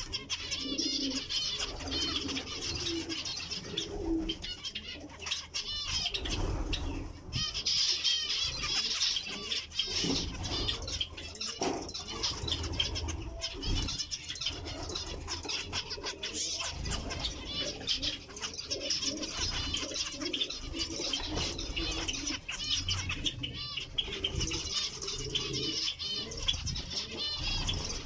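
Many zebra finches calling and chattering continuously in quick, overlapping chirps, with low cooing at times and occasional wing flutters.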